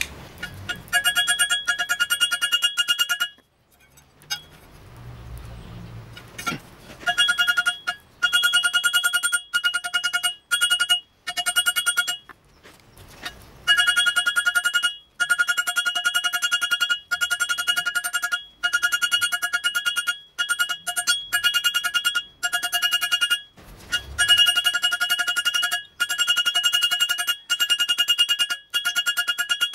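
Hammer blows on a blacksmith's anvil in fast runs, each strike making the anvil ring at the same few metallic pitches, while a hot steel bar is forged into one half of a pair of tongs. The runs are broken by short pauses and a brief stretch without ringing about four seconds in.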